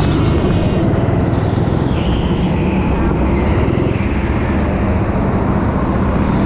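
Go-kart engine running steadily at low revs while the kart sits stopped, an even low hum with noise above it.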